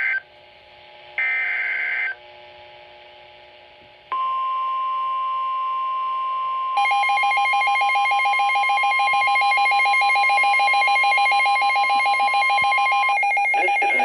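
NOAA Weather Radio alert through a Midland weather radio's speaker: the end of one SAME digital header burst and another full screechy burst about a second in, a couple of seconds of hiss, then the steady 1050 Hz warning alarm tone from about four seconds in. About seven seconds in the radio's own rapidly pulsing alert alarm joins it, and the alarm tone stops shortly before the synthesized voice announcement begins near the end.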